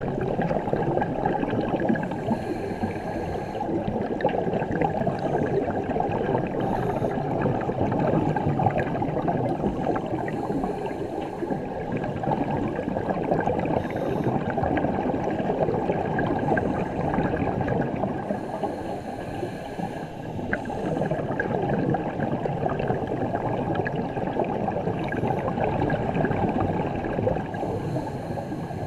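A diver breathing through a Cressi scuba regulator underwater, heard muffled as a steady crackling hiss. A burst of bubbles rises about every eight seconds.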